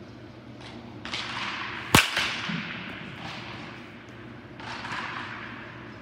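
A baseball bat strikes a pitched ball once, a sharp crack about two seconds in that echoes off the walls of a large indoor hitting building. A softer rushing noise swells about a second before the hit and again near the end.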